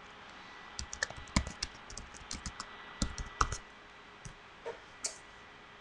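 Typing on a computer keyboard: a quick run of key presses for about three seconds, then a few scattered taps.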